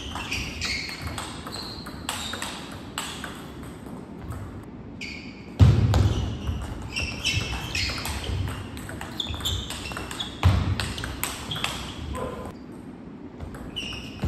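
Table tennis rally: a quick, irregular run of sharp clicks as the ball strikes paddles and table, with short high squeaks of shoes on the court floor. Two heavy thumps stand out, about five and a half and ten and a half seconds in.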